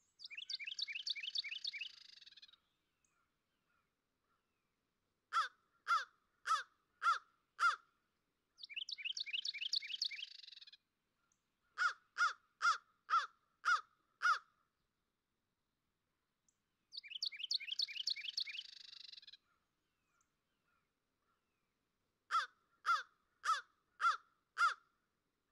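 Bird calls in a repeating pattern: a harsh, rapid trill lasting about two seconds, then a series of five or six loud, clear descending calls about half a second apart, the whole pattern coming three times.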